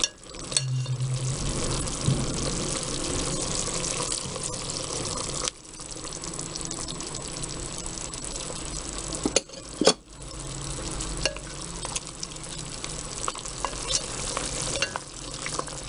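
Chicken pieces sizzling in a glass pot while a spoon stirs and scrapes through them, with a couple of sharp knocks of the spoon against the glass about nine to ten seconds in.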